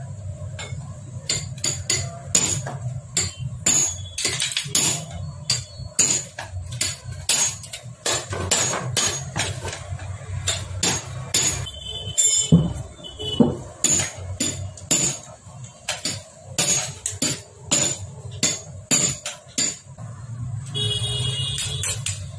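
Hand tools clicking, clinking and tapping on the Hero Splendor Plus engine parts during assembly: a long run of sharp, irregular metal knocks over a steady low hum.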